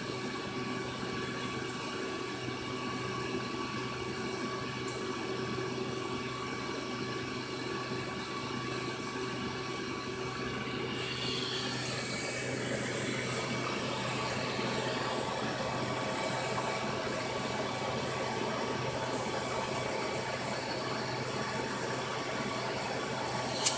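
Aquarium filter running in a turtle tank: steady water noise over a low hum, a little louder about halfway through. A single sharp click near the end.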